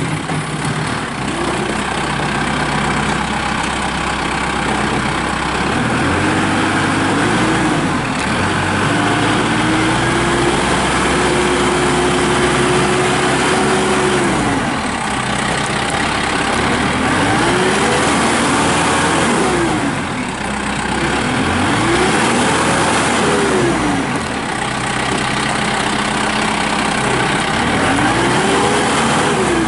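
Kubota M6060 tractor's four-cylinder diesel engine running as the tractor is driven around, its pitch rising and falling several times as it is throttled up and down, with a longer steady stretch near the middle.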